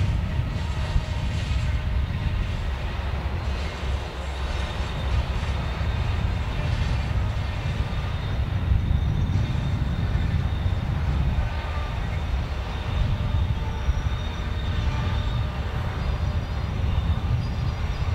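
Amtrak Surfliner passenger train passing, a steady rumble of the cars rolling by, with faint high-pitched tones at times.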